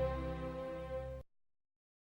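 Background music of sustained, layered tones, fading and then cutting off abruptly just over a second in.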